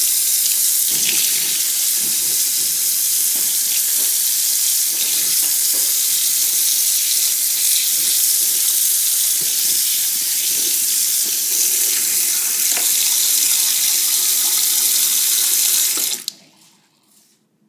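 Kitchen tap running steadily into a sink, the stream splashing over hands and a small iPod held under it. The water stops suddenly near the end.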